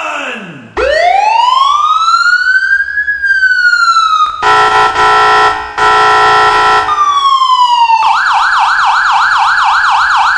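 Car alarm MP3 siren sounding through its horn speaker in a cycle of tones: a rising wail that falls back, a steady many-toned blast broken once, another falling sweep, then a fast warbling yelp of about three to four cycles a second.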